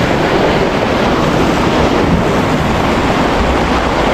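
Rough sea surging and breaking against rocks, with wind buffeting the microphone in a steady, loud rumble.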